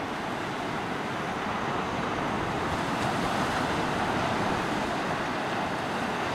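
Ocean surf breaking and washing up the beach: a steady rush of waves that swells a little about three seconds in.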